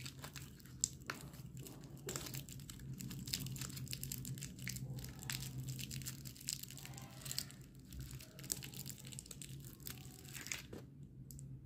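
Clear cellophane wrappers of small Alpenliebe candies crinkling and crackling in irregular little rustles as a handful of the wrapped sweets is shuffled in the hand, over a low steady hum.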